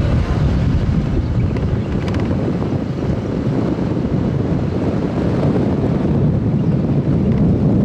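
Wind buffeting the microphone: a loud, steady, gusty low rumble, over city street noise.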